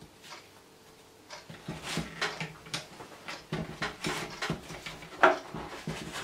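Hand-operated cigar-rolling machine's metal roller frame being slid back and forth over its rolling apron: a run of rustling scrapes and clicks that starts about a second in, with one sharp click about five seconds in.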